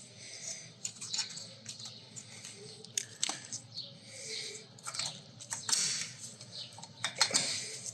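A steel brake caliper retaining spring being worked into place by hand: a string of small irregular metal clicks and scrapes.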